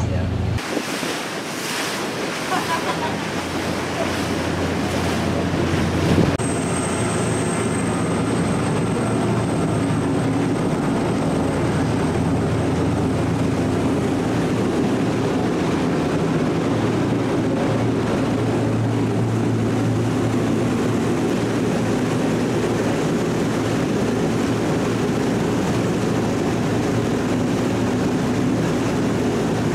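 Churning wake water rushing behind a catamaran tour boat under way, with wind on the microphone and the steady drone of its twin turbocharged Detroit Diesel engines underneath. A short thump comes about six seconds in.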